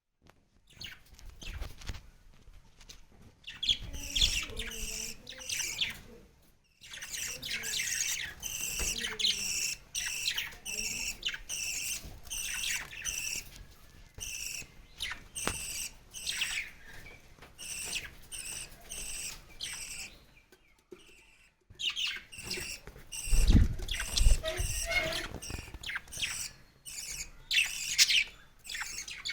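A baby bird's rapid, repeated high-pitched chirping: the begging calls of a chick being fed by its parent. The chirping stops briefly a few times, and a few low thumps come through, the loudest about two-thirds of the way in.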